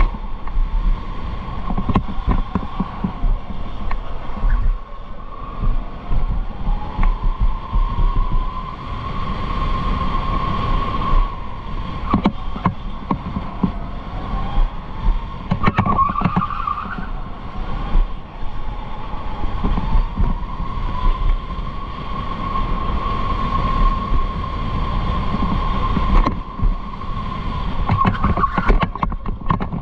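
Electric go-kart's motor whining, its pitch rising and falling with speed, over a steady low rumble and frequent knocks from the kart running on the track.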